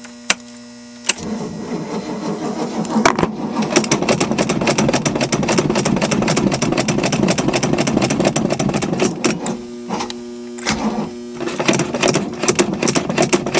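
Starter motor cranking the Mercury MerCruiser 5.7 V8 for about eight seconds without it catching. It then cranks again in a few short bursts. A steady electrical hum sits under the gaps.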